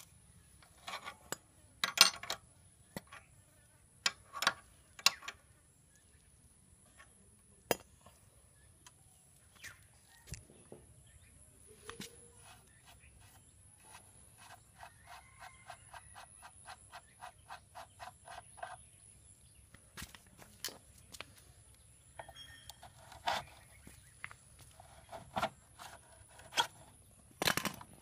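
Scattered metallic clinks and knocks of a wrench on a motorcycle's scissor jack and front axle, most of them in the first few seconds. Midway comes a rapid, even run of clicks lasting about five seconds.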